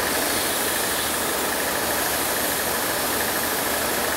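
R134a refrigerant hissing steadily out of the charging hose as it is purged of air, over a car engine idling.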